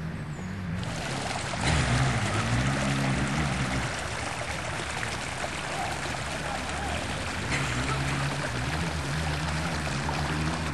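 Hot-spring water splashing steadily from an inlet jet into a thermal pool, over a low steady hum.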